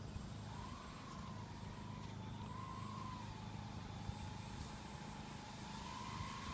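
Electric motors and propellers of a four-engine radio-control Super Constellation model in flight: a faint, steady whine whose pitch wavers up and down, rising a little near the end.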